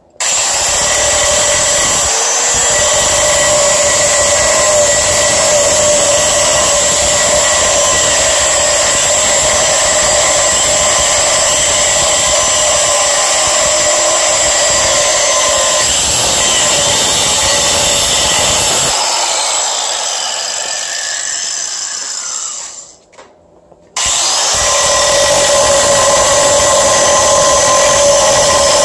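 Angle grinder with a cut-off disc cutting into the aluminum case of a Mazda Miata transmission: a loud, steady high whine with grinding. About two-thirds through it eases off and stops for about a second, then starts again abruptly.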